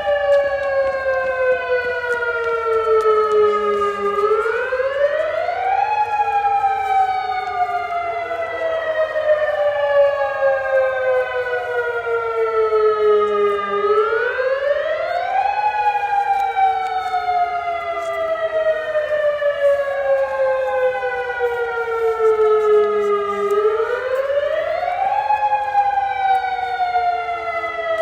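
Federal Signal Modulator 2008 outdoor warning sirens sounding the attack signal. The pitch rises quickly over about two seconds, then falls slowly for about seven, repeating roughly every nine and a half seconds, with a fainter second sweep a few seconds behind overlapping it.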